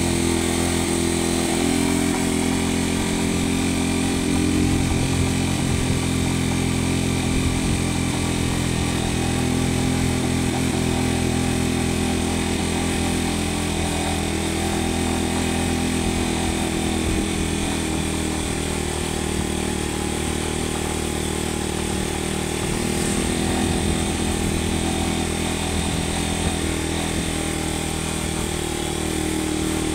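Small motorcycle's engine running steadily under way, heard from on the bike over wind and road hiss; the engine note shifts a few times.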